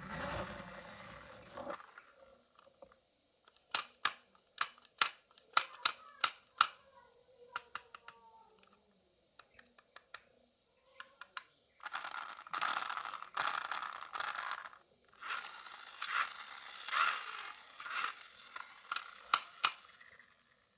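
Marbles rolling and clacking down a wooden marble run: sharp clicks as they drop and knock against the track, then longer stretches of rattling rolling noise.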